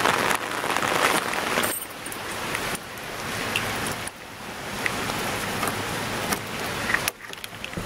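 Steady rain falling on the wet street, with faint clicks and jingles of keys being worked at a door lock. The rain noise drops away sharply near the end.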